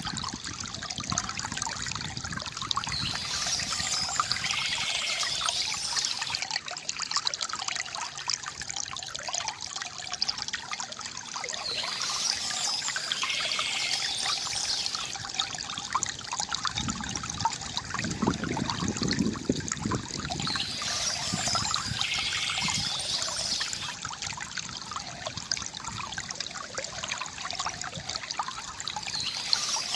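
Water trickling and pouring steadily from a bamboo fountain spout, with a deeper gurgle about midway. Birds chirp in short spells that come back about every nine seconds.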